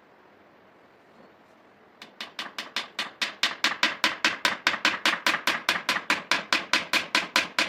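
A rapid, even series of sharp knocks, about five a second, starting about two seconds in after a quiet stretch.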